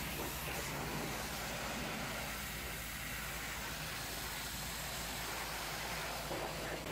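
High-pressure hot-water washer jet hissing steadily as it sprays against a van's metal side panels and windows, with a steady low hum underneath.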